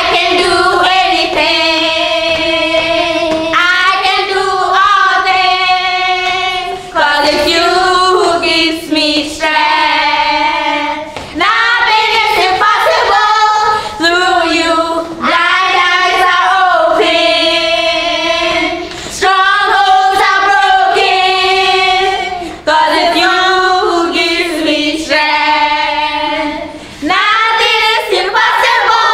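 Women and children singing a song together, in phrases of held notes with short breaks between them.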